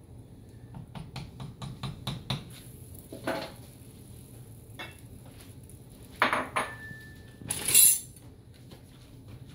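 A wooden spoon stirring soup in a glass pot, giving a quick run of light knocks, then dishes and utensils clattering: a ringing clink a little past the middle and a loud scrape near the end.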